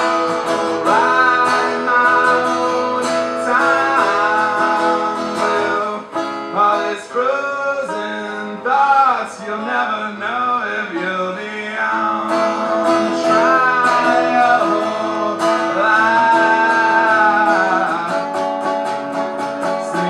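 Guitar music, strummed steadily under a held, bending melody line.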